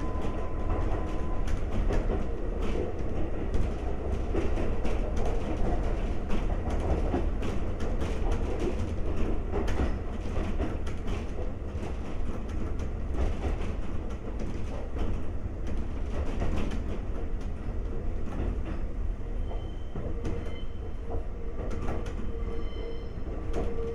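Konan Railway 7000 series electric train car (ex-Tokyu 7000) running along the line, heard from inside the car: a steady rumble with wheel clicks over rail joints. About twenty seconds in, a steady whine joins.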